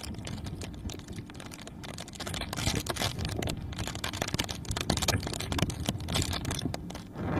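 Tropical-storm wind and rain on the microphone: a low rumble under a dense stream of crackling clicks, growing louder about two and a half seconds in.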